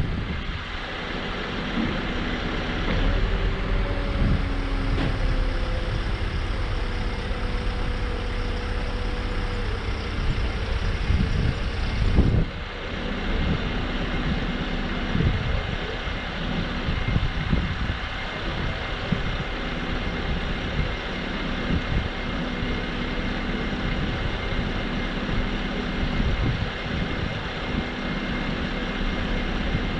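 Diesel engine of a Nissan NT400 Cabstar boom-lift truck running steadily, with irregular low wind rumble on the microphone. A single thump about twelve seconds in.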